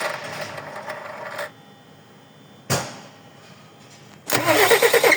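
Turbocharged engine cranked by its starter for about a second and a half without catching, a single click, then cranked again about four seconds in and starting, running with a rhythmic knock. The men take the knock, coming from the front, for a cylinder that isn't firing.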